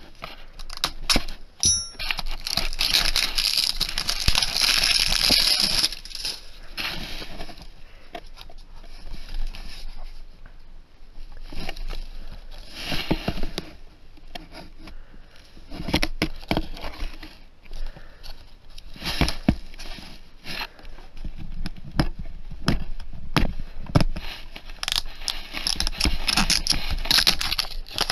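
A plastic DVD case being handled and turned over in the hands: rustling in stretches with scattered sharp clicks, loudest about two to six seconds in and again near the end.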